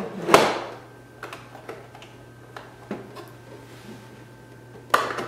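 Hard plastic ink reservoir of a continuous ink system being handled and turned over to move the ink from its back chamber to its front chamber: a brief rustling knock near the start, a few light clicks, and a sharper plastic click near the end.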